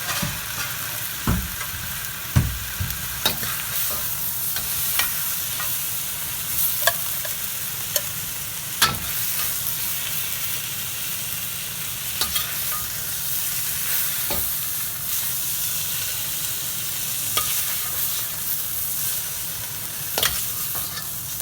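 Bok choy sizzling in a very hot wok, the steady frying hiss broken by sharp knocks of a utensil against the wok every one to a few seconds as it is stirred and scooped.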